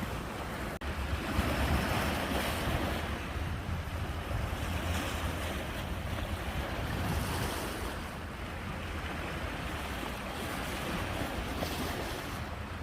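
Ocean waves breaking and washing on the shore, the surf swelling and easing every few seconds, with wind buffeting the microphone as a low rumble underneath.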